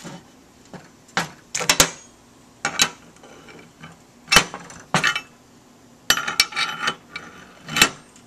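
Metal fuel line fittings clinking and clicking against an aluminum fuel filter base as they are handled and threaded on by hand. About a dozen irregular sharp clinks, some single and some in quick clusters.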